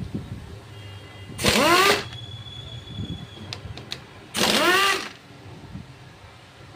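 Impact wrench undoing the bolts of a TVS Jupiter scooter's kick-start/transmission side cover: two short bursts about three seconds apart, each rising in pitch as the tool spins up.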